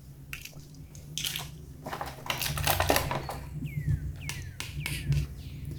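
Hands handling plastic toy pieces and packaging: a string of sharp clicks and taps. Around four seconds in come a few short plastic squeaks that fall in pitch.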